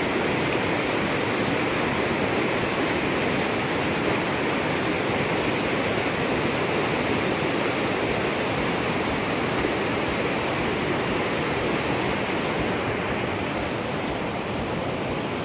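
Floodwater rushing steadily over a concrete weir and churning at its foot, swollen by water released through opened dam shutters. The rush grows a little softer and duller near the end.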